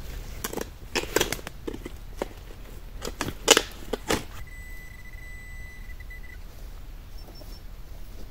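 A run of sharp knocks and scrapes, the loudest about three and a half seconds in, as a spade digs into stony ground. Then a metal detector gives a steady high-pitched tone for about two seconds.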